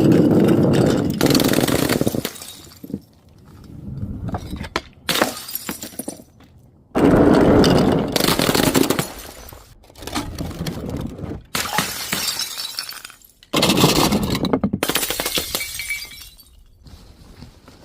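A series of glass bottles and jars smashing, one crash after another. Each starts suddenly with a loud shattering burst and breaks off abruptly at a cut.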